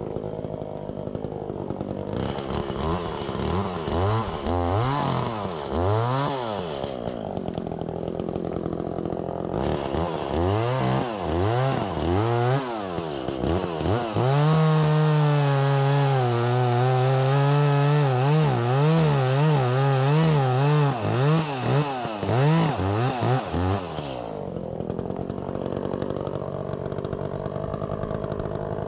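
Echo CS-400 two-stroke chainsaw idling, then revved up and down several times. About halfway in it is held at high revs for roughly ten seconds, its pitch wavering, before it drops back to idle.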